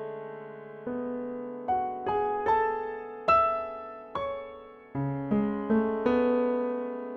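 Background music: slow, gentle piano, single notes and chords struck and left to fade.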